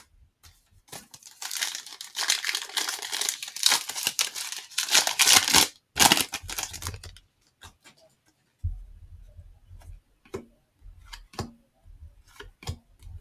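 A trading-card pack wrapper being torn open and crinkled for several seconds, with a shorter burst of crinkling just after. Then a few light clicks and taps of cards being handled.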